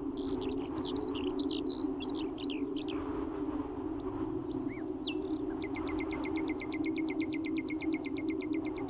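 Low, steady drone from wind-driven strings on a beech tree, picked up by piezo contacts and amplified. Songbirds chirp over it for the first few seconds, and about halfway through a rapid, even trill of about ten pulses a second starts and runs almost to the end.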